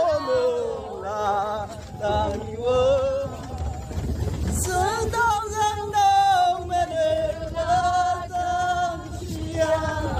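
Singing, with male and female voices holding long, sliding notes.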